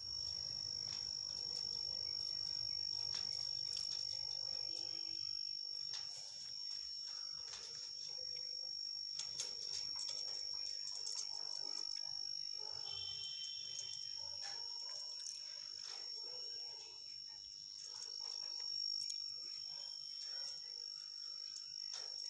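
A steady, unbroken high-pitched insect trill, with scattered faint clicks and a few soft, brief chirps mixed in.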